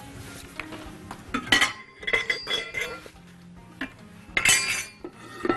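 Metal kitchenware handled on a worktop: a stainless-steel mixing bowl and utensils knocking and clinking, some clinks ringing briefly. The loudest clatters come about a second and a half in and again about four and a half seconds in.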